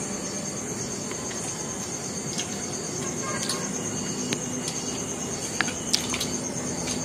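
Eating noises: chewing with a few small clicks and crinkles as food is handled in a paper napkin, over a steady hiss and a constant high whine.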